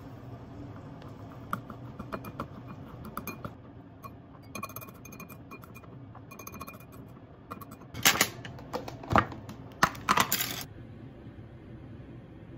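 Chopsticks and a white ceramic bowl clinking as food is poured in and stirred: scattered light ticks, a few ringing clinks, then a cluster of loud sharp clinks about eight to ten and a half seconds in.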